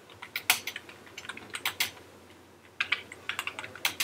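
Typing on a computer keyboard: two runs of quick key clicks with a pause of about a second between them.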